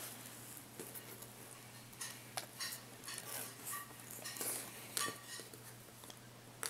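Small irregular clicks, taps and scrapes of fingers handling tiny screws against a laptop screen's metal frame and hinge brackets, over a low steady hum.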